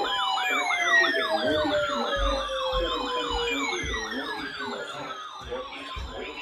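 Emergency vehicle sirens: one on a fast yelp, cycling up and down about four times a second, while others wind slowly down in pitch over several seconds.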